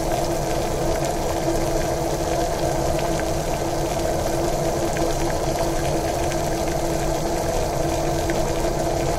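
Mussel soup boiling hard in a small electric pot: a steady bubbling with faint pops over a constant low hum.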